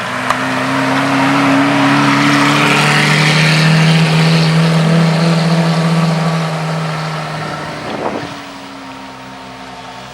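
A sports car's engine holds a steady drone with a broad hiss, growing louder to a peak and then fading as it goes by. About eight seconds in comes a short burst of sharp cracks.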